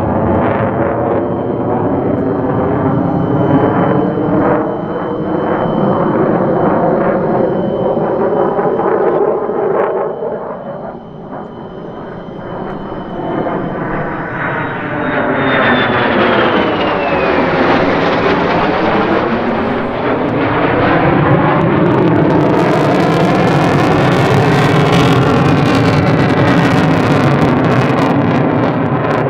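F-35A Lightning II's single Pratt & Whitney F135 turbofan as the jet flies its display pass. A high whine drops in pitch about halfway through as the jet goes by, and in the last several seconds the sound grows louder and harsher, with crackle.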